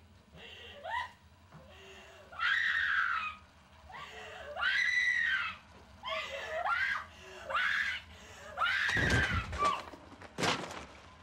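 A woman screaming in panic, a string of high, wavering cries about a second apart. Near the end comes a clatter and a thud as the handheld camera drops to the floor, then the sound cuts off suddenly.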